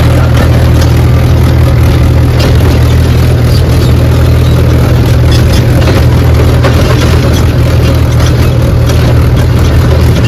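Mahindra tractor's diesel engine running steadily, heard close from the driver's seat, with irregular clicks and rattles over the low engine drone.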